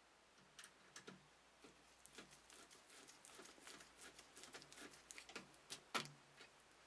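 Faint, irregular clicks and scrapes of a screwdriver tightening a small screw that fixes an optical drive into a computer case's drive bay, with one sharper click near the end.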